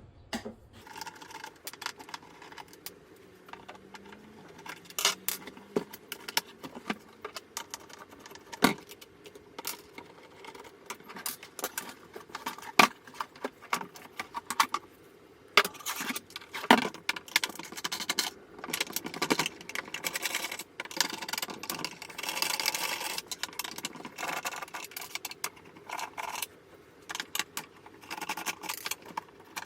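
Screws being taken out of a DeWalt DW91XE jobsite radio's hard plastic case: a steady stream of irregular clicks, scrapes and small rattles as the screwdriver, screws and plastic parts are handled.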